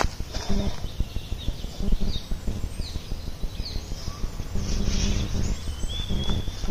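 Wild birds chirping and whistling in short scattered calls, with one longer whistled note near the end, over a steady low rumble.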